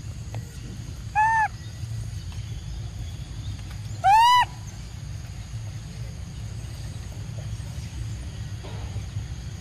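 Two short arching coo calls from a macaque, each rising and then falling in pitch. The first comes about a second in; the second, louder and slightly higher, comes about four seconds in. A steady low rumble of background noise lies underneath.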